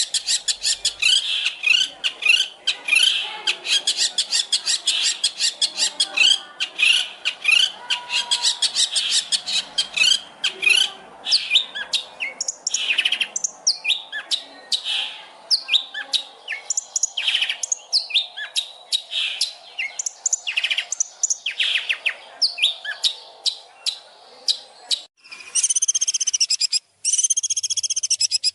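Songbird singing a fast run of chirps, rattling trills and short whistled notes. Near the end it switches to a repeated arched call with several overtones.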